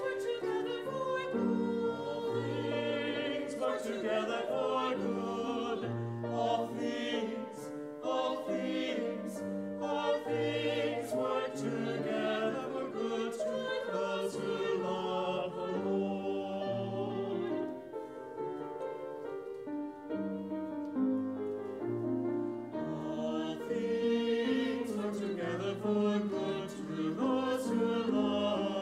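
Mixed church choir singing a sacred anthem in parts, with piano accompaniment.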